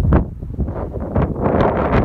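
Strong gusting wind buffeting the phone's microphone.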